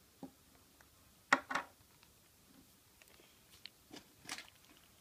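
Fingers handling a plastic toy and pulling Play-Doh apart at close range: two sharp clicks about a second and a half in, a few fainter ticks, and a short crackly rustle near the end.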